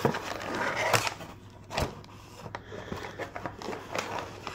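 Hands handling packaging: plastic soft-bait bags crinkling and a cardboard box flap rustling for about the first second, then scattered sharp clicks and knocks as the items are moved about.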